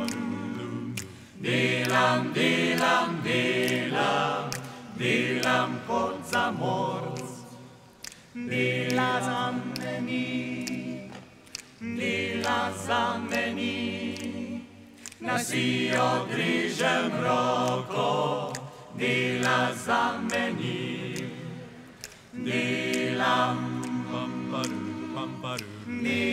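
Small vocal group of young voices singing a cappella in phrases, with short pauses between them.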